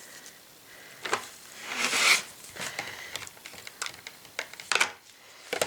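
Foam and plastic packaging of a model locomotive being handled and opened: scattered light clicks and knocks, with a longer rubbing, scraping sound about two seconds in.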